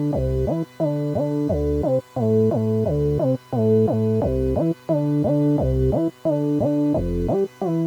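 Synthesizer playing a repeating sequenced phrase of short pitched notes, each phrase of a few notes cut off by a brief gap about every second and a half, with no drums.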